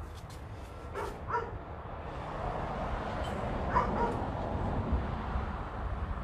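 A dog giving short yipping barks: two about a second in and one more near four seconds. A few light clicks come just before them.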